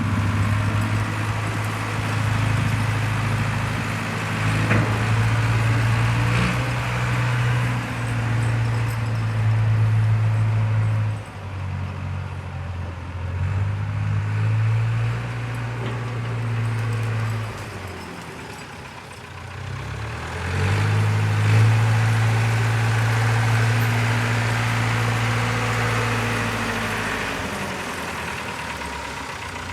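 Caterpillar 910 wheel loader's diesel engine running, its speed and load changing as it goes: the note drops away in the middle and picks up again about two-thirds of the way through.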